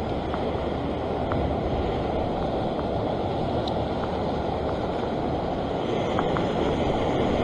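Ocean surf washing and breaking against a rock platform, a steady rushing noise, with wind on the microphone.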